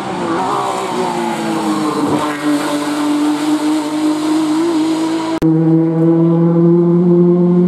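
Race car engine at high revs passing close by, its note dropping as it goes past and then holding a steady drone. About five seconds in, the sound cuts to a second race car's engine heard from further off, a steady note slowly rising in pitch.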